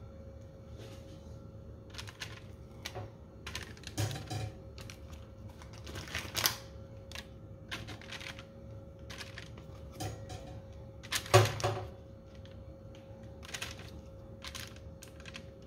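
Irregular soft taps and crinkles of baking paper as sausages are laid down one by one on an oven rack, the loudest near the middle and about three quarters of the way in, over a steady faint hum.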